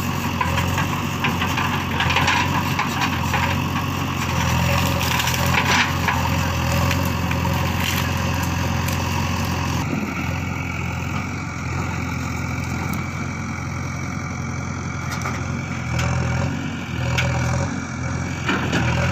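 JCB 3DX backhoe loader's diesel engine running steadily under load while the backhoe bucket rips out brush and small trees, with crunching and snapping of wood over the engine.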